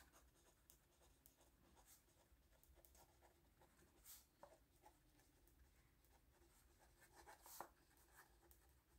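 Faint scratching of a ballpoint pen writing on notebook paper in short strokes, over near silence, with slightly louder strokes about four seconds in and again near seven and a half seconds.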